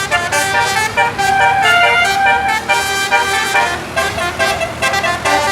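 Telolet basuri musical air horns playing a fast melody, a quick run of changing horn notes with no break, over a faint steady low hum.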